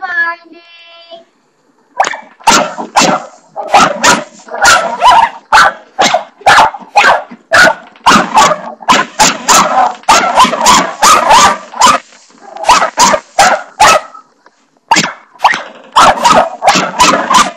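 Dog barking over and over at a spring doorstop being flicked: quick, sharp barks about two a second, starting about two seconds in, with a couple of brief pauses near the end.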